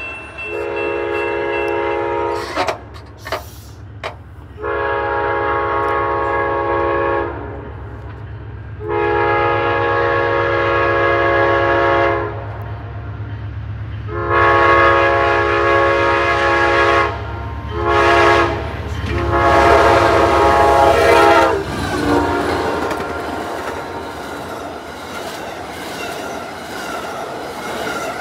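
Horn of an Amtrak passenger train's GE P42DC diesel locomotives, sounding a string of long blasts that ends long, long, short, long for a grade crossing, over the low drone of the diesel engines. From about 22 seconds in, the train passes close by with a steady rumble and wheel clatter on the rails.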